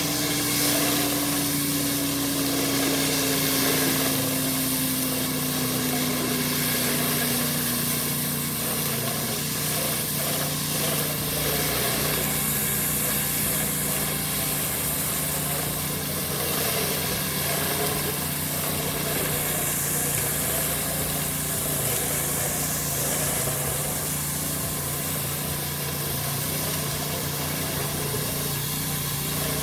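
Petrol pressure washer engine running steadily while the high-pressure water jet hisses against the driveway. One engine tone slides slowly down in pitch over the first several seconds, then the running settles.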